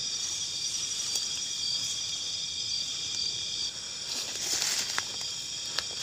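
Crickets and other night insects trilling steadily in several high pitches, with footsteps swishing and rustling through tall grass, loudest about four and a half seconds in.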